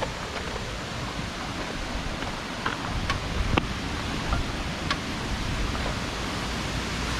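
Steady rushing of water from a waterfall, with a few faint clicks over it.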